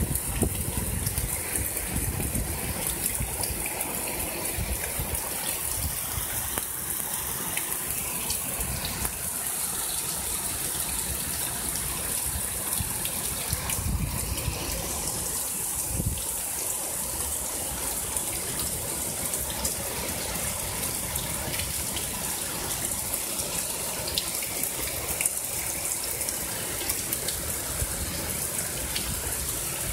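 Heavy storm rain pouring down, a steady rush of falling and splashing water with an uneven low rumble underneath.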